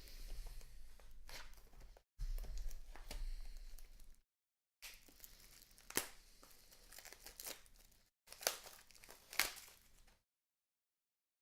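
Faint rustling and tearing of a trading card pack's wrapper as it is opened and handled, with a few sharp crinkly snaps in the second half.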